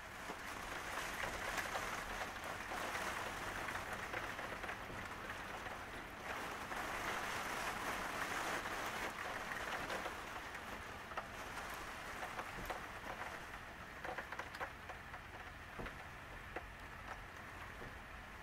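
Rain falling as a steady hiss with pattering drops, heavier through the first half and easing toward the end, where single drops tick more distinctly.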